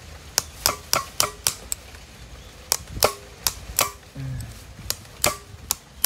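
Sharp metal-on-metal knocks, about fifteen in quick uneven runs, as the jammed mechanism of a seized refrigerator compressor is tapped to try to free it.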